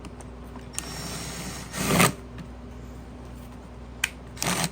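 Hands working small metal parts on a lawn mower engine while fitting its mounting bolts: a scraping rustle that grows louder about two seconds in, a sharp click about four seconds in, then another short scrape, over a steady low hum.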